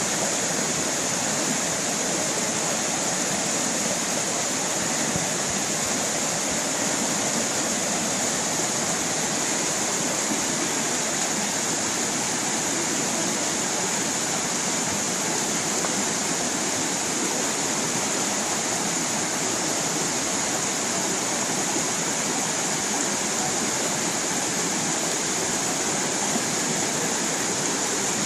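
A small stream of running water splashing steadily over rocks.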